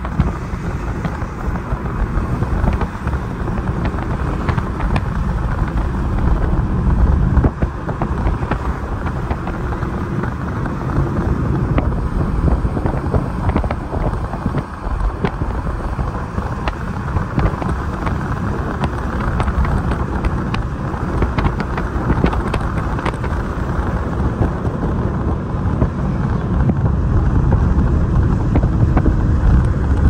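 Car travelling at speed: steady tyre rumble and wind noise.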